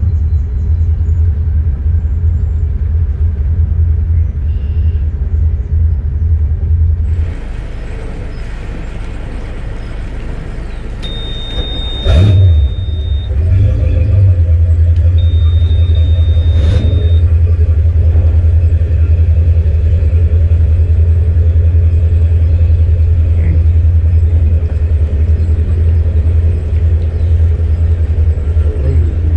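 A boat's MerCruiser 7.4 big-block V8 inboard running underway, a heavy steady low rumble. The rumble eases for a few seconds about a third of the way in, then comes back strong. Two short high steady beeps sound in the middle, the first with a sharp knock.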